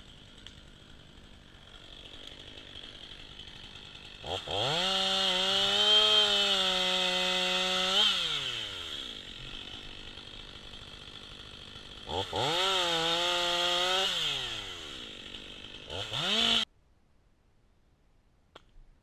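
Stihl 500i fuel-injected two-stroke chainsaw idling, then run up to full throttle twice, for about four seconds and then about two, each time dropping back to idle. A short blip near the end, then the engine is switched off and stops abruptly.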